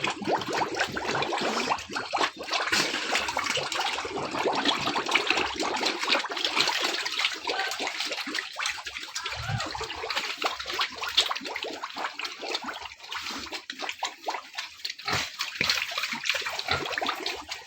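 Pigs eating wet swill of water and hotel food waste: a busy, irregular run of wet slurps and smacks.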